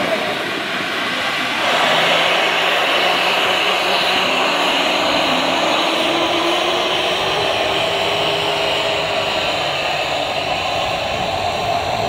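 Four-person Seago liferaft inflating from its compressed-gas cylinder: a steady rush of escaping gas that grows louder about two seconds in as the canopy fills.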